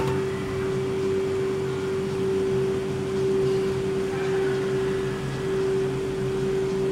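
BKN-S82 commercial soft ice cream machine running while it dispenses soft serve continuously, a steady even hum with one strong mid-pitched tone over lower ones. The sound is from its compressors and beater motors at work.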